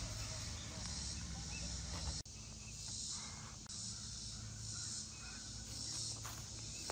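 Insects in the summer woods, a steady high hiss that swells and fades, over a low hum. The sound drops out briefly about two seconds in.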